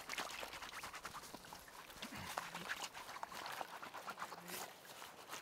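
Faint, scattered small splashes and dabbling of shallow lake water as a dog is washed at the reedy edge by hand.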